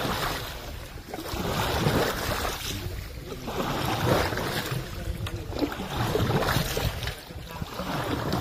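Floodwater sloshing and swishing in regular surges about every two seconds, with a low rumble of wind on the microphone.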